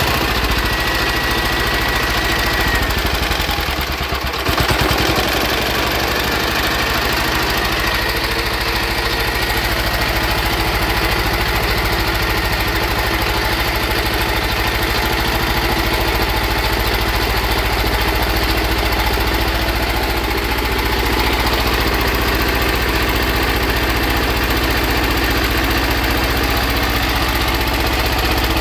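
Small air-cooled single-cylinder diesel engine, a high-compression (18.6:1) conversion for woodgas, running steadily. There is a short dip in level about four seconds in.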